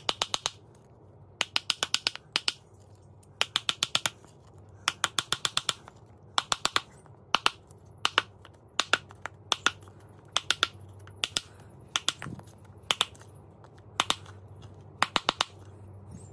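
A hand tool worked against a hard plastic helmet speaker mount to flatten its surface, giving bursts of three to six quick sharp clicks, about one burst a second.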